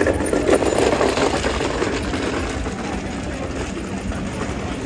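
Busy city street ambience: a steady rumble of traffic mixed with passers-by, louder in the first second or so and then easing slightly.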